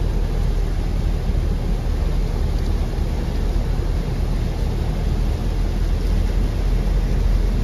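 A vehicle driving slowly through floodwater, heard from inside the cab: a steady low rumble of engine and wheels in water.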